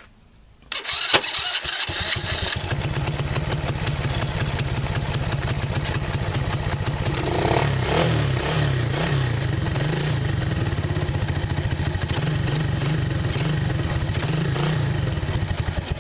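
Electric starter cranking a Coolster 125cc single-cylinder four-stroke ATV engine for about two seconds, with a sharp kick as it fires, which the owner puts down to ignition timing advanced by a new aftermarket CDI. The engine then catches and runs unevenly on choke, and cuts out suddenly near the end.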